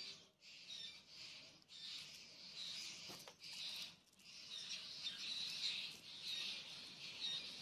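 Plastic grafting tape being stretched and wound around a grafted stem: a high, hissy rustle in repeated pulls with short gaps between them.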